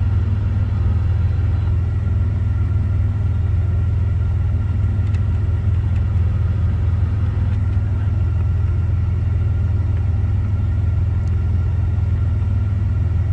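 1990 Dodge Grand Caravan's 3.3-litre V6 idling steadily, heard from inside the cabin as a constant low rumble. A couple of faint clicks come from the dash radio's buttons being pressed.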